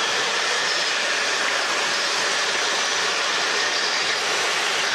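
Steady cabin noise of a Robinson piston-engine helicopter in cruise flight: an even, loud rushing of rotor, engine and airflow with faint steady high whining tones.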